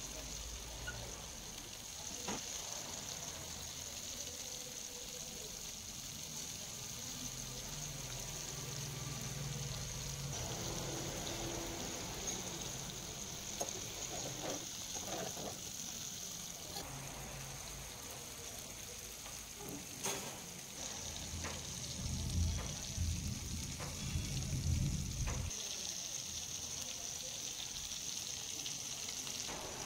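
Whole masala-coated red snapper frying in oil on a flat steel tawa griddle: a steady high sizzling hiss, with scattered clicks and a low rumble that swells for a few seconds about three-quarters of the way through.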